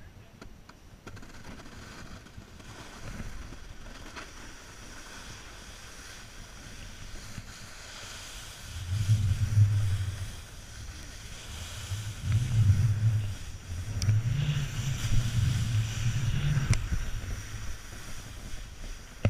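Wind buffeting the microphone in loud low gusts about halfway through and again toward the end, over the steady scrape of a board sliding and carving on packed snow.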